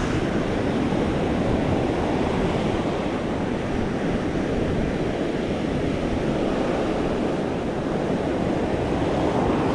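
Ocean surf washing steadily onto the beach, with wind on the microphone.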